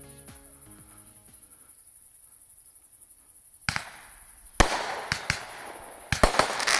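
A bundle of Roman candles starting to fire. A spraying hiss begins about halfway through, then sharp shots crack off one after another over it, coming thicker near the end.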